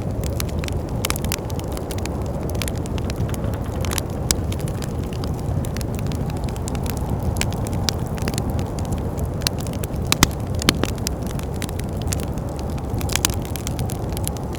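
Wood fire crackling, with sharp pops scattered irregularly throughout and the loudest pops about ten seconds in, over a steady low rumble.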